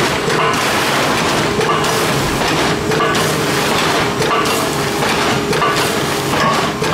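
Bosch vertical form-fill-seal bagging machine running in production, a steady mechanical clatter with its cycle repeating about every second and a quarter.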